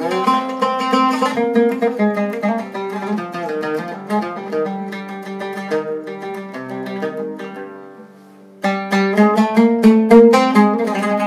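Zeryab Premium 2 Syrian oud played solo, a melodic line of quickly plucked notes. The notes die away to a short pause about eight seconds in, then the playing comes back louder with fast, rapid picking.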